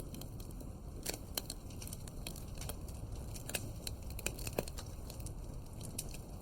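Wood fire crackling in a fireplace: irregular sharp pops and snaps, several a second, over a low steady rumble of the flames.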